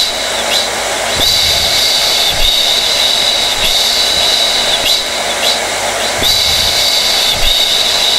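Hair dryer running steadily: a rushing airflow with a high whine, the whine dipping briefly at even intervals a little over once a second.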